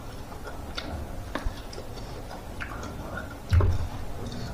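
Close-up eating sounds: scattered lip smacks and wet chewing clicks. There is one dull low thump about three and a half seconds in.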